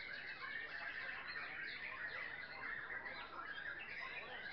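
Many caged white-rumped shamas singing at once: a dense, unbroken jumble of overlapping whistles and chirps.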